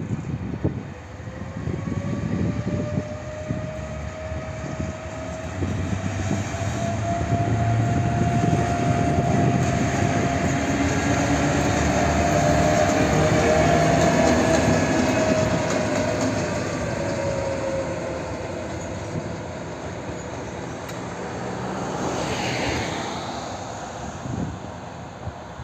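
Ludmila-class BR 231 diesel locomotive running light and pulling away under power: the deep engine runs with a whine that rises and then falls as it passes, loudest about halfway. A brief high squeal near the end.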